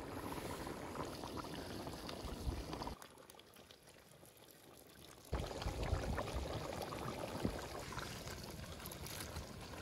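Lamb and carrot broth boiling hard in a large metal cauldron, stirred and scooped with a long-handled ladle, with liquid sloshing and dripping back in. The sound drops much quieter for about two seconds in the middle, then comes back louder.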